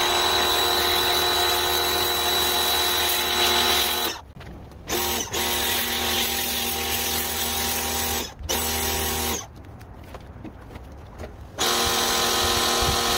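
Craftsman 1700 PSI electric pressure washer running, a steady motor-and-pump whine with the hiss of the spray. It stops and restarts several times, the longest break about two seconds, as the trigger is released and pulled again.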